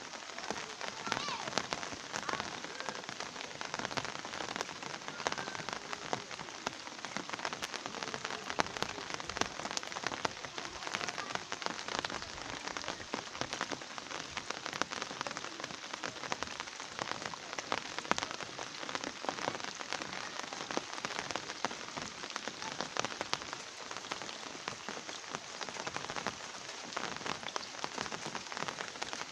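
Steady rain falling, a dense, even run of small drop hits with no let-up.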